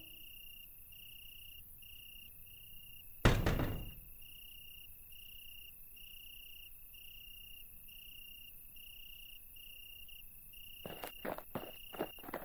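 Crickets chirping in a steady, evenly pulsing high trill. About three seconds in, a single sudden heavy thud that dies away over under a second; near the end, a quick run of sharp clicks and taps.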